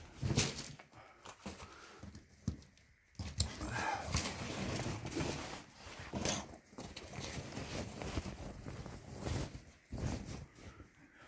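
Rustling and handling of a military rucksack and the items packed inside it, with a few sharp knocks and clicks among the rustling.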